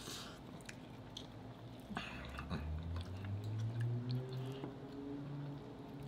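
Close-miked chewing, biting and wet mouth sounds of people eating roasted turkey wing and cheesy spinach casserole, with small clicks and smacks. A low hummed "mm" from a voice comes in about two seconds in and lasts a couple of seconds.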